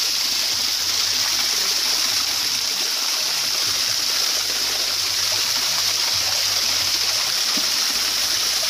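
Steady, unbroken rush of water noise with a constant high hiss over it.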